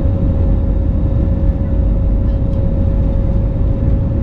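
Cabin noise of an Airbus A320 taxiing on the ground, its IAE V2500 engines at idle: a loud, steady low rumble with a steady whine held on one pitch.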